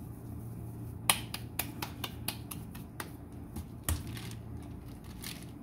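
Hands patting a ball of corn masa (nixtamal dough) between the palms: a run of sharp, moist slaps, about three a second, stopping about four seconds in.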